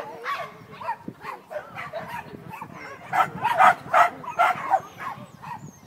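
A dog barking in short, repeated barks, scattered at first and then a quick, loud run of about three barks a second from roughly three to five seconds in.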